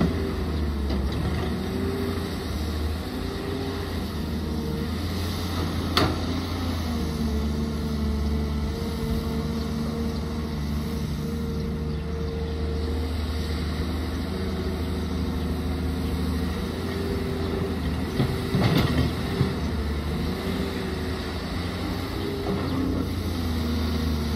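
Caterpillar 320C excavator's diesel engine running steadily as it digs and loads. Its tones step up and down in pitch as the machine works. There is a sharp knock about six seconds in, and a few clunks about three-quarters of the way through.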